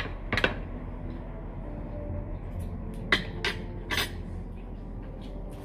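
Knife and fork clinking against dinner plates as food is cut and eaten: two sharp clinks near the start and three more about three to four seconds in, over a low steady hum.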